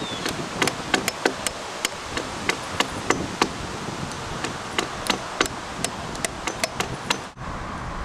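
Hammer striking steel nails being driven into an elm log: a quick, uneven run of sharp taps, a few a second, that cuts off suddenly near the end.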